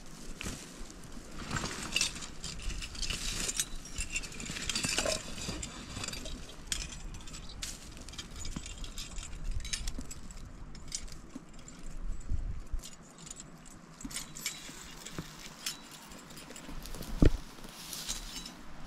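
Irregular rustling, clicking and metallic clinking as trapping gear is handled and moved about, with one sharp, heavy knock about 17 seconds in.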